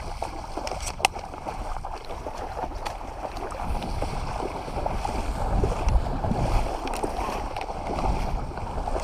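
Steady water and wind noise with a low rumble, broken by a few sharp clicks.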